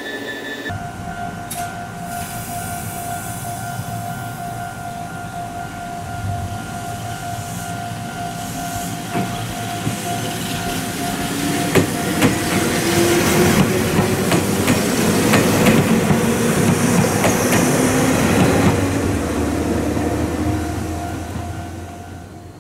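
Ohmi Railway electric train set 105F pulling away from a station and passing close by. Its motors whine, rising in pitch as it gathers speed, and its wheels clatter over the rail joints, loudest midway through before fading. A steady ringing tone sounds through the first half.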